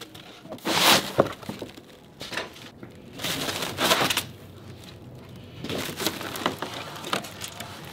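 Foam packing sheets scraping and rubbing against the plywood sides of a shipping crate as they are pulled out, in about three noisy bursts with a few knocks against the wood in between.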